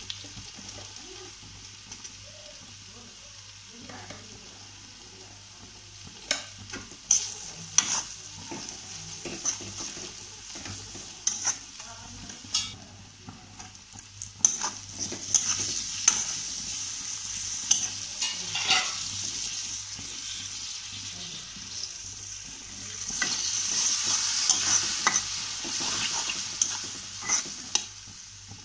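Sliced onions and spices sizzling in hot oil in an iron kadai, stirred with a metal spatula that clicks and scrapes against the pan. The sizzling grows louder about halfway through, once tomato pieces go into the oil.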